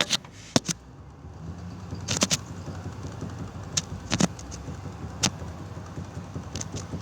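Peugeot 306 front anti-roll bar knocking and clicking irregularly, a dozen or so sharp knocks as the suspension is moved. The knocking comes from excessive play in the anti-roll bar bushings, which are worn out and crushed.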